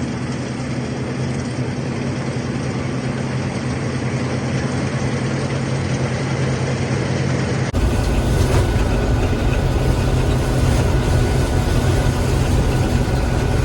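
Gleaner M3 combine running steadily while harvesting wheat, heard from inside the cab: a steady machinery drone with a low hum. About eight seconds in the sound changes abruptly and becomes louder and fuller in the low end.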